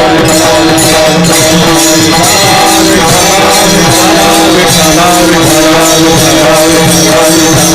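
Devotional kirtan music: sustained held notes over jingling metal hand percussion that keeps a steady beat.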